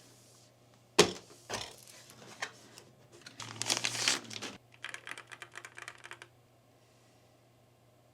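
Typing on the Arbiter Polar 65's magnetic (Hall-effect) switches: a few separate sharp keystrokes, the first the loudest, then a dense flurry and a quick even run of keystrokes that stops about six seconds in.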